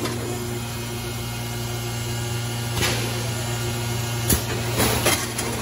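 Roll-fed plastic thermoforming machine running, with a steady electric hum and a few sharp mechanical knocks as the plastic sheet feeds off the rolls.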